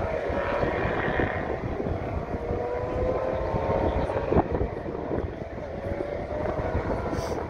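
Race car engines running on the circuit, heard from a distance, their pitch slowly rising and falling as the cars accelerate and lift. A single sharp knock about four and a half seconds in.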